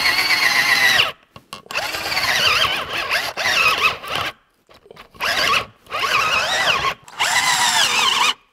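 Cheap Hi-Spec 18-volt cordless drill boring a 1-inch spade bit into wood. It runs steadily for about a second, then stops and starts in several short bursts, its whine sagging and rising as the motor bogs down. The drill does not have enough power to drive the bit, and its gearbox gives a rough sound that the owner calls "not a nice sound inside of that drill".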